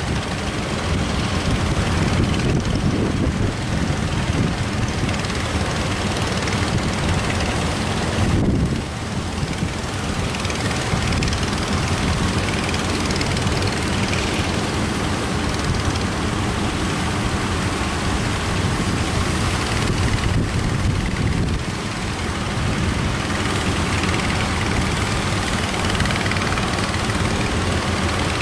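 Strong wind buffeting the microphone over the rumble of breaking surf, a loud, steady noise with brief lulls.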